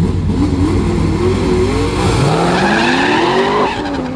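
V8 drag car accelerating hard, its engine note climbing steadily in pitch with tyres squealing, then dropping sharply near the end.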